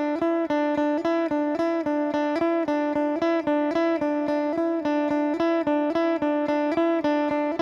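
Electric guitar tone test, the guitar picking a repeated note figure in an even rhythm of about four notes a second. Each note rings clearly over the next.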